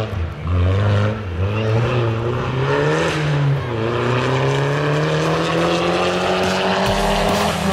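Rally car engine at full throttle: the revs climb and drop with quick gear changes in the first three seconds, dip about three and a half seconds in, then rise steadily in one long pull.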